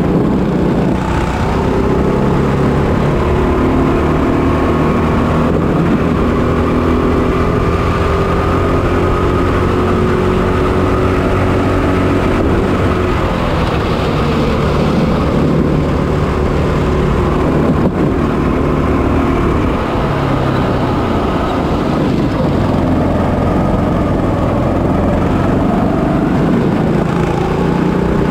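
A racing kart's 6.5 hp GX200 single-cylinder four-stroke engine running hard, heard onboard. Its pitch climbs steadily over the first dozen seconds as the kart accelerates, drops about twenty seconds in as it slows for a corner, then climbs again.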